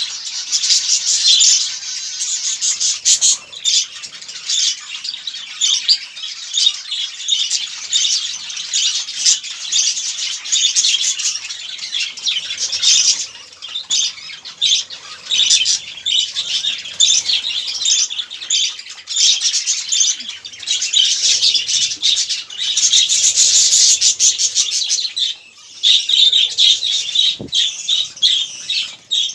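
A flock of budgerigars chattering and warbling without pause, a dense mass of rapid, overlapping chirps.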